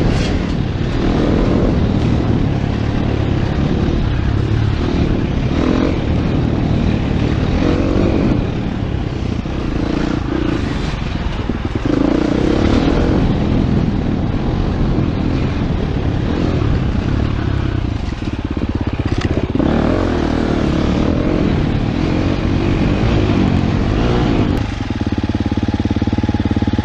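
Dirt bike engine being ridden along a trail, the revs rising and falling with the throttle. Near the end the bike stops and the engine settles into a steady idle.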